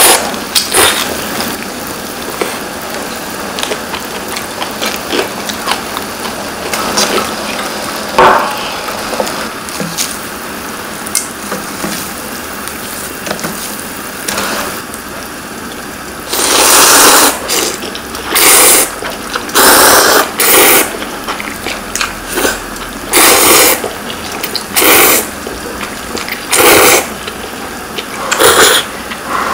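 A steaming pot of Shin Ramyun boiling, with light clinks of tongs and chopsticks. From about halfway, loud noodle slurps come roughly every second and a half, about nine in all.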